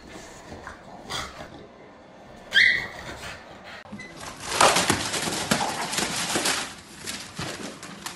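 A dog gives one short, sharp bark or yelp, followed a couple of seconds later by several seconds of rustling and knocking noise.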